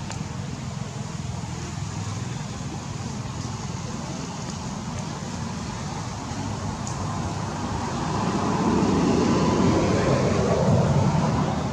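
Steady low rumble and hiss of outdoor background noise, swelling louder about eight seconds in.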